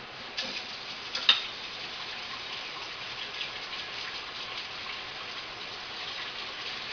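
Battered cempedak pieces deep-frying in hot oil, a steady crackling sizzle, with one sharp click a little over a second in.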